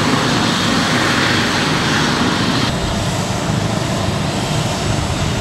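Steady, loud engine drone, its character changing abruptly about two and a half seconds in.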